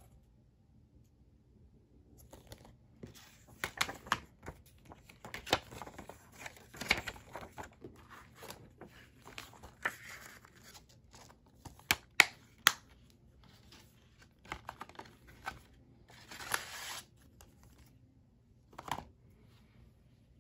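Hands handling a plastic Blu-ray keep case and its paper insert: clicks and snaps of the plastic case and rustling of paper, with the sharpest clicks about twelve seconds in. Near the end a single knock as the closed case is set down on a wooden floor.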